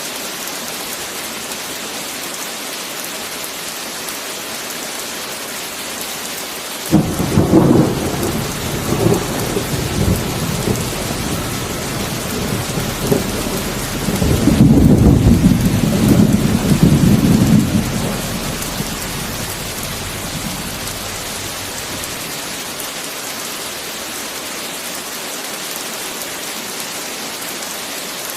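Steady heavy rain, with a sudden thunderclap about seven seconds in that rumbles on, grows louder again about halfway through, and then dies away.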